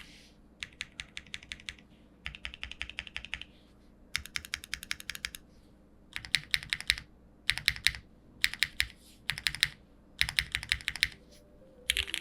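Typing on a foamless Neo65 mechanical keyboard with lubed and filmed Cherry MX2A switches, an aluminium plate and PBT keycaps. The keystrokes come in quick runs of clicks with short pauses between them.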